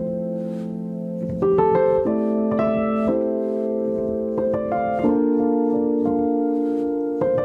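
Background piano music: sustained chords that change every second or two.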